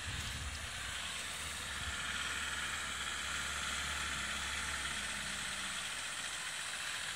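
Land Rover Defender 90 engine running at low revs as the short-wheelbase 4x4 crawls up a rocky, rutted track, a steady low hum under an even hiss. The engine note fades about six seconds in.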